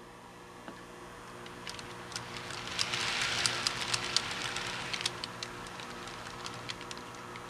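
Model railroad cars rolling along the layout's track, their wheels giving irregular sharp clicks over rail joints and switches over a faint steady motor hum. The rolling noise and clicking swell in the middle, then ease off.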